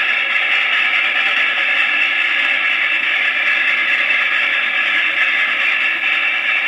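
Train sound-effects record from around 1950 playing on a 1935 wind-up acoustic Victor suitcase phonograph: a steady, even rush of noise with no bass and no distinct beat.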